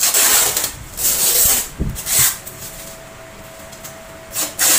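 Plastic protective wrap being pulled and peeled off the body of a new air fryer, rustling in several separate pulls, with a quieter stretch after about two and a half seconds before a last pull near the end.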